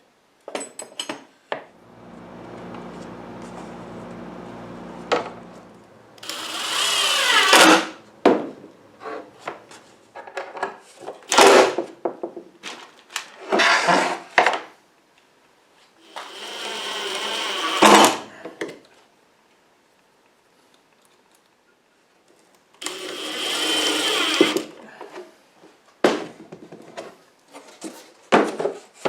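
Power tool working wood: a motor running steadily for a few seconds, then a series of short loud cuts of one to two seconds each with quiet gaps between, as when holes are bored into a wooden tool-drawer insert.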